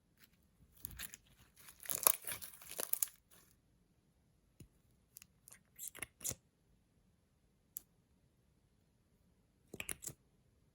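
Slime and makeup being worked by hand: a couple of seconds of dense crackling and crinkling, then a few scattered sharp clicks and snaps, with a short cluster of clicks near the end.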